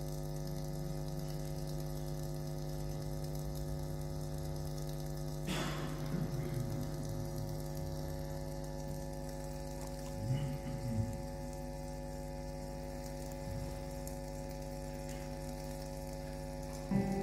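Steady electrical hum from the sound system, with a sharp click about five seconds in. A keyboard starts playing at the very end.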